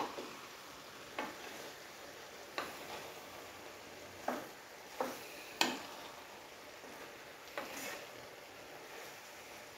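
Wooden spoon stirring ground coconut paste into cooked mixed vegetables in a nonstick pan: about seven short, irregular scrapes and knocks of the spoon against the pan, over a faint steady hiss from the simmering pan.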